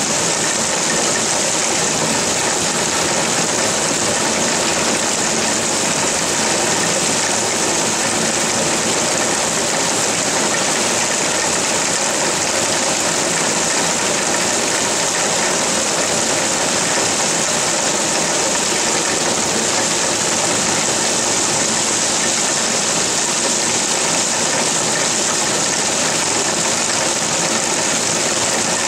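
Heavy rain falling, a steady even hiss that does not let up.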